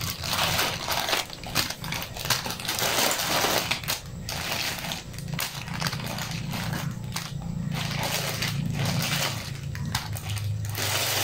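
Plastic snack-cake wrappers and their foil-lined outer bag crinkling and rustling in irregular bursts as the individually wrapped Fudgee Barr packs are pulled out and dropped on a table.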